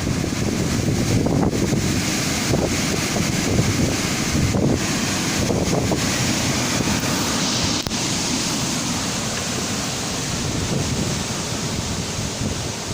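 Strong wind blowing and buffeting the microphone: a continuous rushing noise with a heavy, uneven low rumble.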